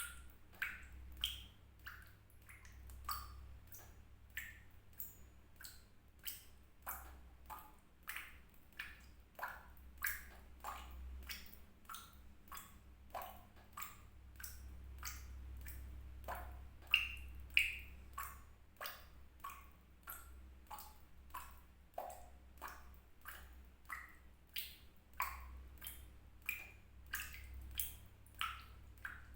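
Water drops falling one after another into water, each a short plinking drip with a quick upward-sliding pitch, about one to two a second.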